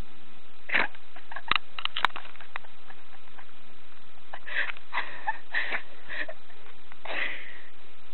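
A person sniffing hard through the nose to clear it: a few short sniffs in the first two seconds, a cluster of sniffs in the middle, and one longer sniff near the end.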